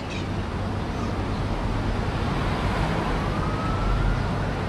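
A faint siren wailing over a steady rushing noise, its pitch rising slowly from about halfway through.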